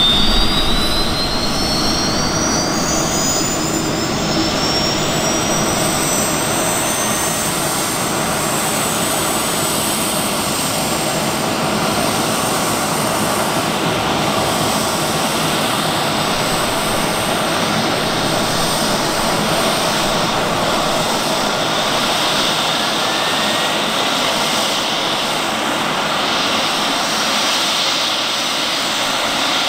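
AgustaWestland AW139 helicopter's twin Pratt & Whitney PT6C-67C turboshaft engines running: a steady loud rush with a high turbine whine that rises in pitch over the first several seconds and then holds.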